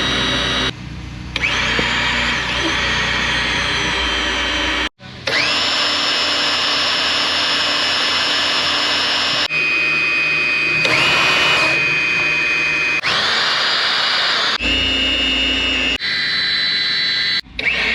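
Electric power tool motor, drill-like, spinning up with a rising whine and then running steadily, heard as several separate runs that cut abruptly one into the next.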